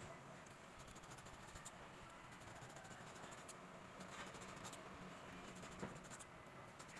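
Near silence with faint scratching and a few small clicks as a radiator fan motor's stator housing is turned over in the hand.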